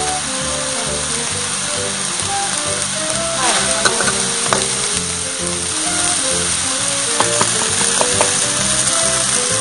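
Minced pork sizzling as it stir-fries in a wok, with a few sharp clinks of the metal spatula against the pan, over background music with a stepping melody.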